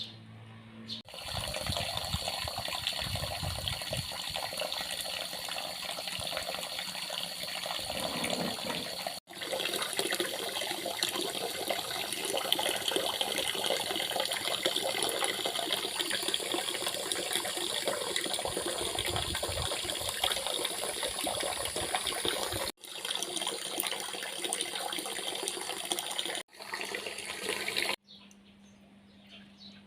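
Running water, a steady rushing, broken by sudden cuts about nine seconds in and a few times near the end, then stopping.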